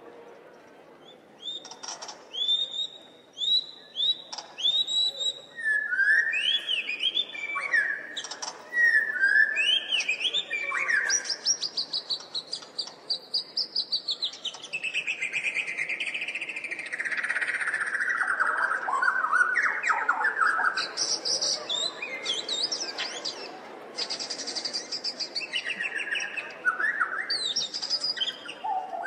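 Recorded birdsong played as a sound effect over a theatre's speakers: many birds chirping, whistling and trilling, with a long falling whistle in the middle.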